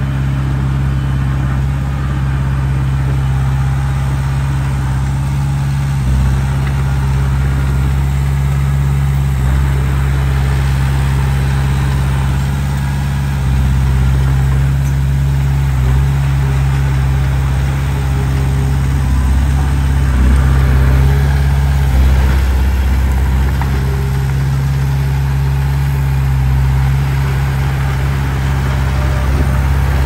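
Diesel engine of a Komatsu D20P crawler bulldozer running steadily, getting somewhat louder for a couple of seconds about two-thirds of the way through.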